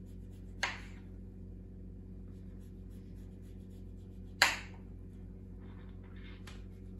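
A small kitchen knife cutting the peel and pith off an orange on a plastic cutting board. The blade knocks sharply on the board twice, once about half a second in and louder about four and a half seconds in, with a softer scraping cut through the peel near the end. A steady low hum runs underneath.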